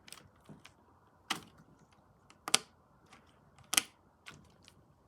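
Handling noise: three sharp clicks about a second and a quarter apart, with fainter taps between them.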